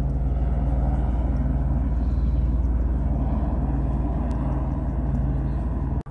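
Steady low mechanical rumble with a constant low hum, like a running engine, which cuts off suddenly near the end.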